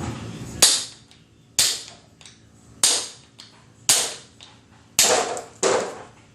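Six sharp hammer blows, about one a second, with a short metallic ring after each: a hammer striking the CV joint's spider gear to drive the joint off a Polaris RZR 800 S axle shaft.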